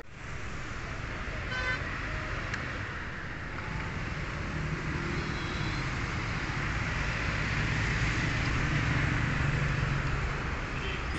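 Road traffic on a multi-lane divided road: a steady mix of tyre noise and engines from passing cars, motorcycles and buses, swelling a little toward the end.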